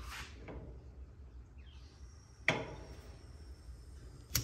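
Two sharp ignition clicks about two seconds apart as a two-burner propane camp stove's second burner is being lit.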